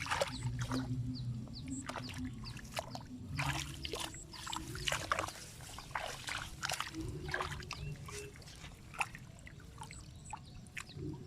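Shallow water sloshing and splashing in short, irregular bursts, over a low steady hum.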